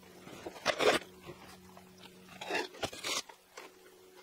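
A small scoop digging into a paper sack of gypsum plaster powder and tipping it into a bucket of water: three short scraping, rustling strokes, about a second apart near the start and twice close together later.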